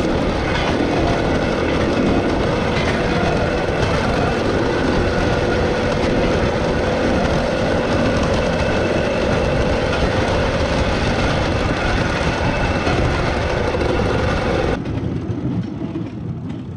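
An engine or motor running steadily and loudly with a held hum, cutting off suddenly near the end.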